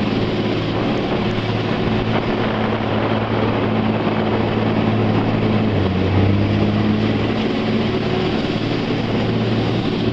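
Jet boat engine running steadily under the rush of churning whitewater and wind. The engine note dips and then picks up again about six seconds in.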